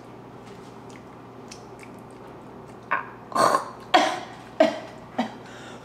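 A woman chewing softly, then letting out about five short, forceful huffs through her open mouth in quick succession, reacting to the heat of spicy onion-ring snacks.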